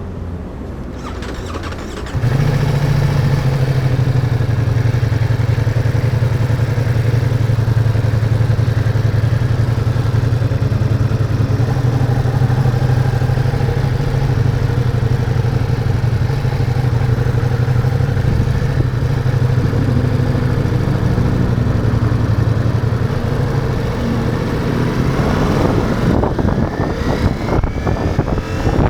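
Ducati Multistrada V4's V4 engine starting about two seconds in and idling steadily, then revving with rising pitch near the end as the bike pulls away.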